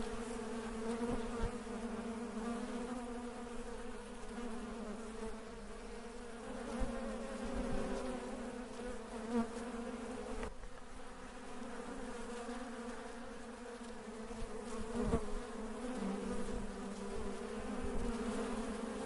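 Many honey bees buzzing together in a steady, continuous hum that swells and dips slightly.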